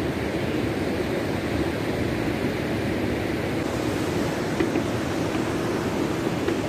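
River water rushing over shallow rocky rapids and a weir: a steady, even rush of white water.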